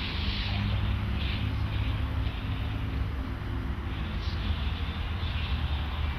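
Steady low rumble of city street traffic, with a hiss of passing vehicles swelling now and then.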